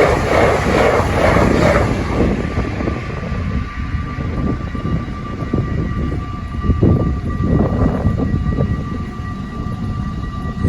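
Passenger train rumbling past a level crossing, loudest in the first couple of seconds and then easing, with scattered knocks from the wheels. The crossing's bells ring steadily throughout.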